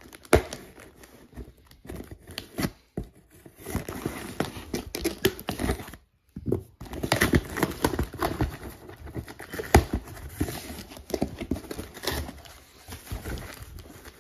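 A utility knife slitting packing tape on a cardboard box, then the cardboard flaps being pulled open, with irregular scraping, tearing and crinkling and a brief pause about six seconds in. Near the end, bubble wrap rustles as a hand reaches into the box.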